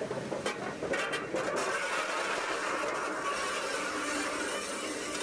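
A standing oil-fired class 01 express steam locomotive giving off a steady hiss, with a few short knocks in the first second or so.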